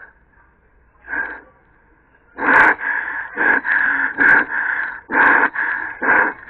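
A woman's loud, strained gasping breaths building toward a sneeze: one short gasp about a second in, then a run of them coming in quick succession from about two seconds in.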